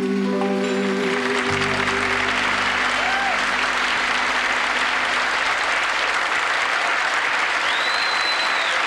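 Audience applauding at the end of a song, while the last held chord of the accompaniment fades out in the first couple of seconds.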